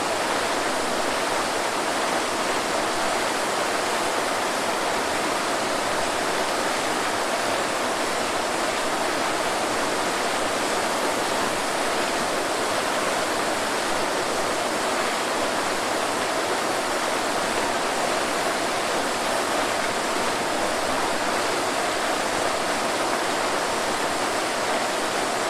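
Waterfall: water falling and splashing in a steady, continuous rush.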